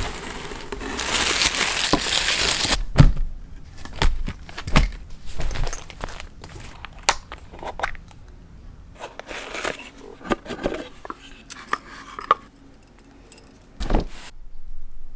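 Parcel being unpacked by hand: a spell of rustling from the wrapping inside a cardboard box, then scattered light clicks and taps as small boxes are handled and opened, and a knock near the end.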